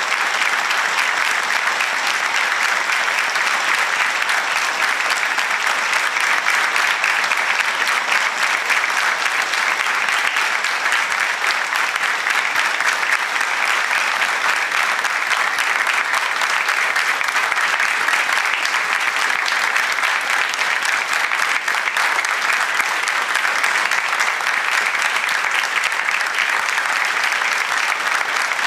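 Steady applause: many hands clapping in a dense, unbroken patter that starts suddenly and keeps an even level throughout.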